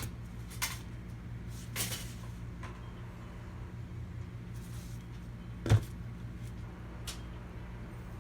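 Scattered light clicks and taps of things being handled, with one sharper knock a little before six seconds in, over a steady low electrical hum.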